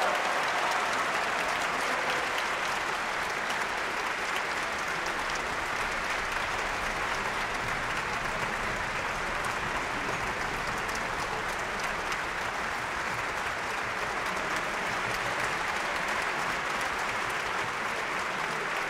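Large concert-hall audience applauding steadily in an ovation at the close of a piano concerto.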